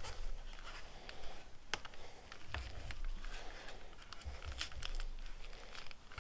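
Hands rolling a tight, stretchy rubber sleeve along a motorcycle handlebar grip: irregular rubbing and rustling with small ticks and a few dull low thumps.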